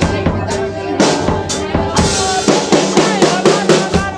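Live band playing: a drum kit keeping a steady beat of bass drum and snare strokes, with a cymbal crash about halfway through, over sustained electric piano and violin.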